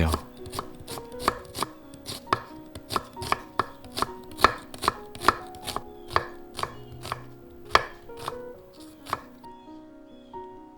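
Kitchen knife slicing an onion on a cutting board, about three cuts a second, stopping about nine seconds in.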